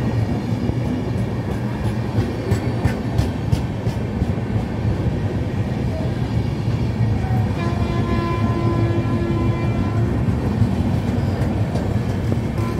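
Indian Railways passenger coaches rushing past at speed: a steady rolling rumble with wheels clattering sharply over rail joints, most between about two and four seconds in. From about eight seconds in, steady tones of several pitches sound over the rumble for a couple of seconds.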